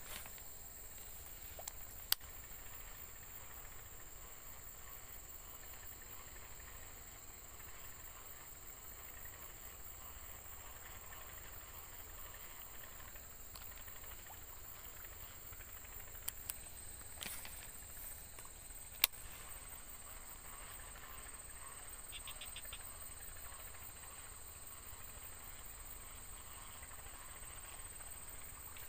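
Steady, high-pitched drone of insects, with a second high tone joining about halfway through. A few sharp clicks stand out over it.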